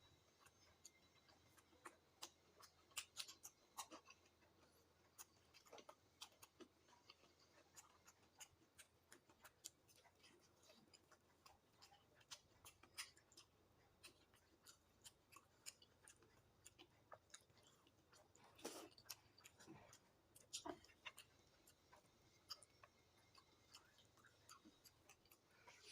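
Faint close-up eating sounds: a person chewing food, with scattered small mouth clicks and smacks and a few louder ones about three-quarters of the way through.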